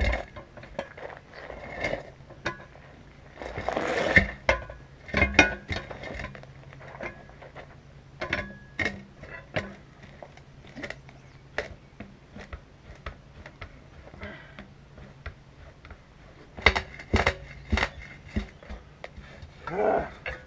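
Irregular metallic clanks and clicks from a manual tire changer as its steel bar is levered around the rim of a heavy truck tire, with bunches of quick knocks about four seconds in and again near seventeen seconds.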